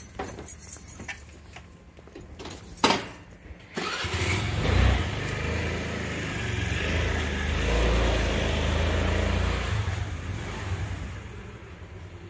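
A motor vehicle's engine running close by, coming up loud about four seconds in as a low rumble and easing off near the end, after a few sharp knocks.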